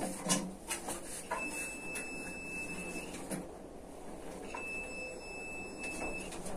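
Digital multimeter's continuity beeper sounding twice, each a steady high beep about a second and a half long, as the contact of a mechanical float-type fuel reserve sensor closes while the tank is tilted: the reserve switch is working. Light handling noise of the tank runs between the beeps.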